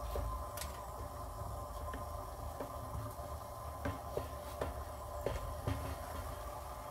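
Wooden paint-brush handles clinking and tapping against a glass jar as they are moved about in it: a scatter of light clicks over a steady low hum.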